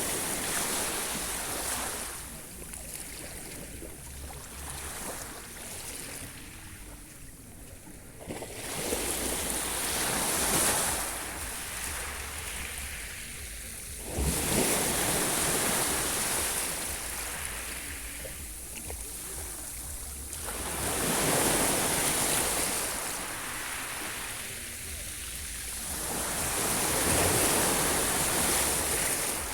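Sea waves breaking and washing in, with a hissing surge about every six to seven seconds, five in all.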